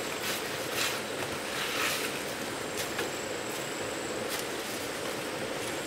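Water pump running steadily, with a few brief higher noises over it.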